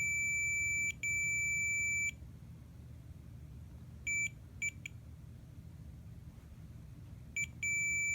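A handheld digital multimeter's continuity beeper sounding a steady high-pitched beep that starts and stops as the test probes make and break contact. Two long beeps of about a second come first, short blips follow around the middle, and a longer beep starts near the end.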